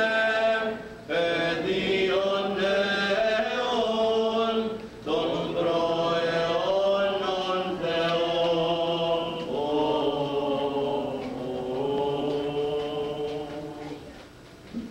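Voices chanting a hymn in long, held notes that slide between pitches, with short breaks about one and five seconds in, getting quieter near the end.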